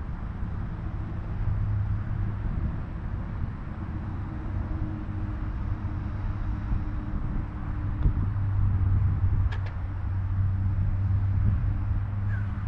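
A vehicle engine running steadily, giving a low, even hum over a rumbling noise.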